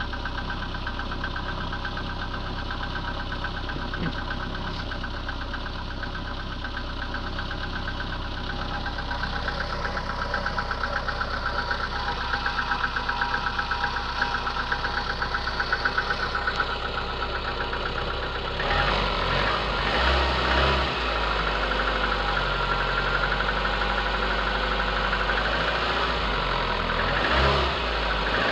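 VAZ 2110 16-valve four-cylinder engine idling with a fast, even knock: the owner finds it after a cold start at −10 °C and says it fades as the engine warms and is gone by 80 °C. About two-thirds in, a lower rumble joins the running engine.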